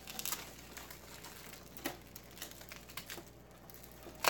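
Packaging being handled and unwrapped by hand: quiet crinkling with scattered sharp clicks, the loudest click at the very end.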